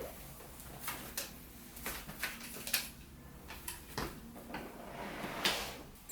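Scattered light knocks and clicks, about eight over six seconds, from an upside-down office chair being handled and set in place.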